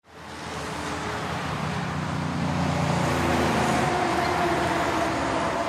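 A steady rushing roar that fades in from silence and builds slowly, with faint humming tones running through it.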